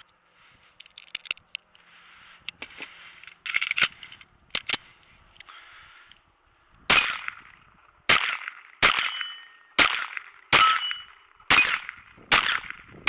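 Glock 44 .22 LR pistol fired in a steady string of seven sharp shots, a little under a second apart, starting about seven seconds in. Before the shots come a few light clicks.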